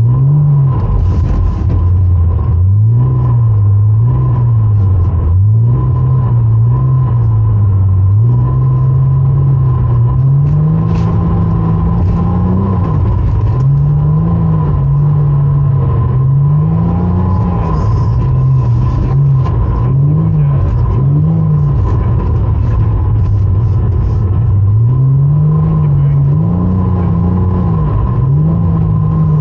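Porsche Cayman's engine revving up and down over and over, its pitch rising and falling every second or two as the throttle is worked to hold the car in a drift. A steady high whine sits under it throughout.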